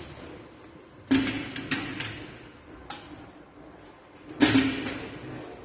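Hinged door of a wall-mounted electrical breaker panel being opened and handled: two loud knocks with a short ring, about three seconds apart, with lighter clicks between.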